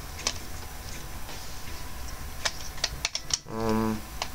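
Hands handling a plastic camcorder body: scattered clicks and taps, with a quick run of clicks about three seconds in. Just after, a short hummed voice sound is the loudest thing.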